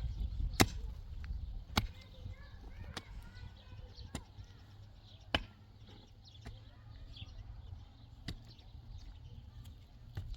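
Sharp knocks at irregular intervals, roughly one every one to two seconds, over a low rumble.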